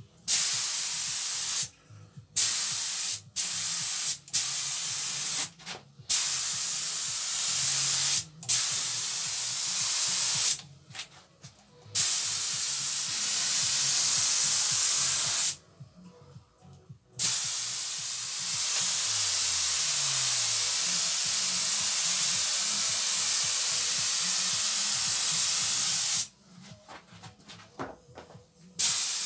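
Compressed-air spray gun spraying primer, set to about 1.8–2 bar. The hiss of air and atomised paint comes in trigger bursts: short ones of about a second at first, then longer passes of several seconds, the longest about nine seconds.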